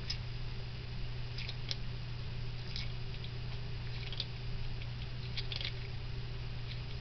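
Blue-tongued skink chewing hard-boiled egg white: short, wet smacking clicks at irregular intervals, about one a second, over a steady low hum.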